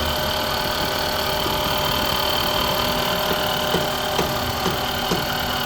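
2005 Honda Civic engine idling steadily with an odd noise coming from the cylinder head, which the mechanic takes for the camshaft.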